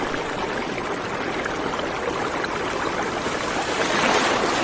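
Water rushing steadily, from ground liquefaction during the earthquake; it swells a little near the end.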